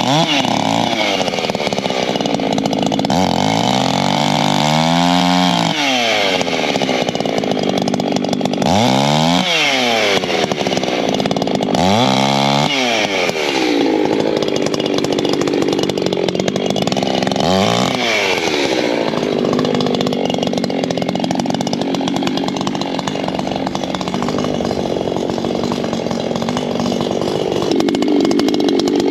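A ported Echo CS-620 two-stroke chainsaw is cutting through firewood logs at full throttle. Its engine note dips and climbs back several times as the chain bites into and clears the wood, then holds high through a longer cut.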